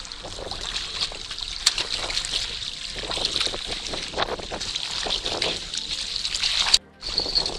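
Water splashing and trickling, with two sharp clicks, one about a second and a half in and one near the end, followed by a brief dropout.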